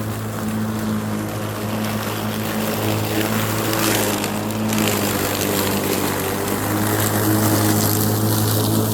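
Lawn mower running steadily at full speed as it cuts and bags leaves. There is a brief swell of rushing hiss about four seconds in.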